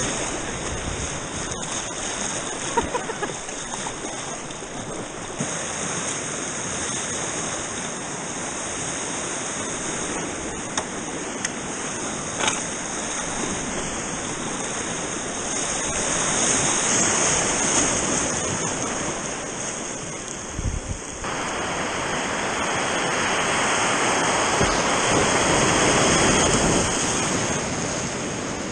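Whitewater rapids on a river, heard from a kayak running them: a steady rush of churning water that swells louder twice, in the middle and near the end.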